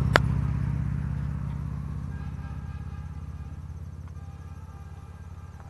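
A motor vehicle on the nearby road running past and fading steadily as it moves away, with a sharp click just after the start.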